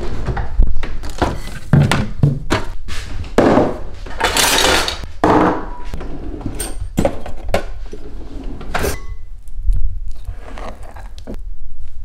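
Kitchen handling noises: a run of knocks and thunks from a cupboard door and a cutlery drawer, cutlery clinking, and bowls set on a stone worktop, with a longer rustle about four seconds in.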